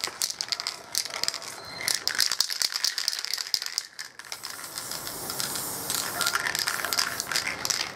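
An aerosol spray paint can is shaken, its mixing ball rattling in quick clicks. About four seconds in the nozzle is pressed and the paint sprays out in a steady hiss.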